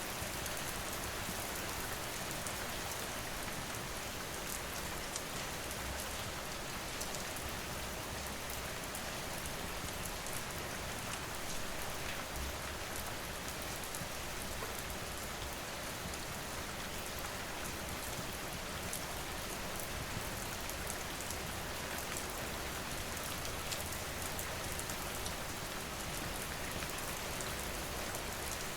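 Steady rain falling, with faint scattered ticks.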